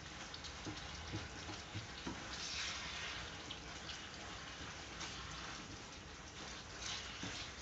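Chicken liver and onion rings sizzling steadily in a frying pan, the hiss swelling briefly a couple of times.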